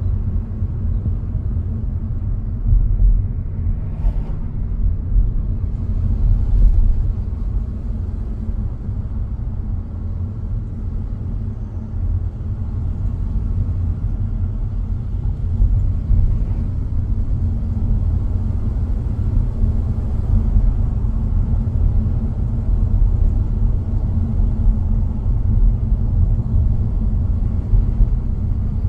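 Car being driven, with a steady low rumble of road and engine noise.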